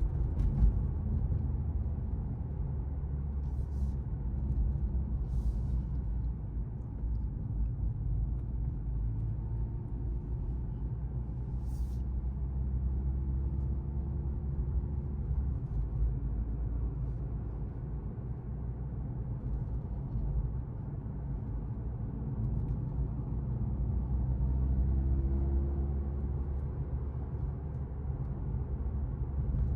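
2023 Mercedes-AMG C43's turbocharged four-cylinder engine and tyres running at a steady cruise, a deep rumble with a faint engine tone that swells and eases a little. A few brief faint clicks in the first half.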